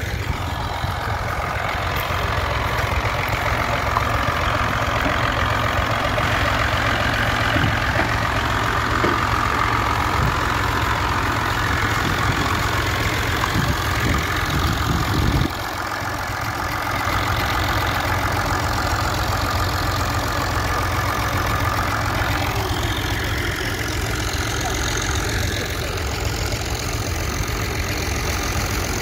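Tractor engine running steadily with a low rumble, which drops out suddenly for a moment about halfway through before coming back.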